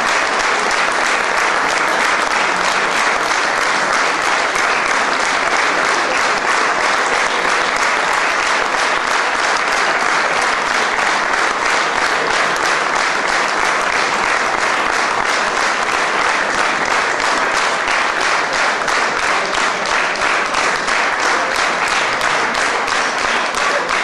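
Theatre audience applauding, a dense sustained clapping. About halfway through, the clapping falls into an even, shared beat.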